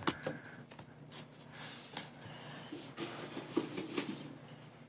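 A few light, scattered taps with paper rustling as a folded-paper origami hand is bounced on a hardcover book.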